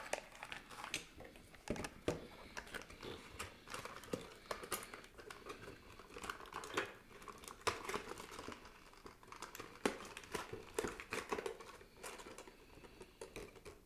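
Clear plastic bag crinkling and rustling in a string of irregular crackles as it is handled around a vinyl figure and slid into a cardboard window box.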